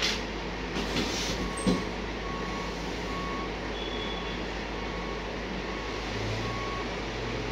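Heavy truck running with its reversing alarm beeping steadily, a little more than once a second. Near the start and about a second in there are short hisses, and a sharp clank comes just under two seconds in.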